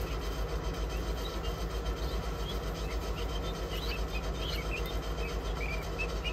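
Guinea fowl keets giving short, high peeps here and there, more often in the second half, over a steady low hum.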